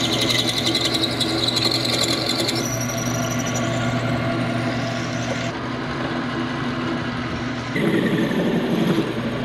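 Metal lathe running while a twist drill in the tailstock bores through a grade 8 steel bolt held in the chuck, the start of turning the bolt into a home-made thread insert. The cut squeals high for the first few seconds. About eight seconds in, an aerosol can sprays cutting oil onto the turning work with a short hiss.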